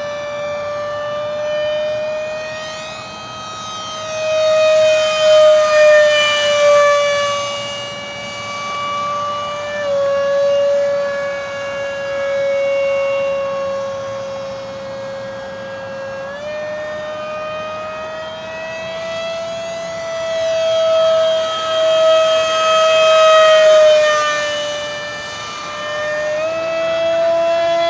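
Whine of a 50mm electric ducted fan on a model A-4 Skyhawk jet in flight. Its pitch drops about ten seconds in and steps back up around sixteen seconds and again near the end as the throttle changes. It grows louder on two close passes.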